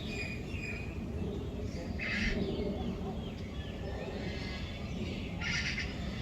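Birds calling: scattered short chirps, with two louder calls about two seconds in and near the end, over a steady low background rumble.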